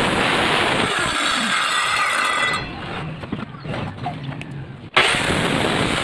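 Stanley corded circular saw cutting wood, then released about a second in and winding down with a falling whine. Light knocks of cut wood pieces being handled follow. About five seconds in the saw is switched on again with a sudden start.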